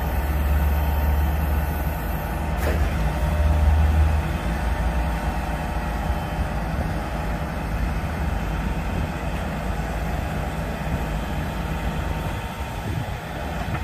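Delivery lorry's diesel engine running steadily to power its hydraulic loader crane as the crane swings and lowers a bulk bag of stone. The low engine drone is heaviest over the first four seconds, with one small click a little under three seconds in.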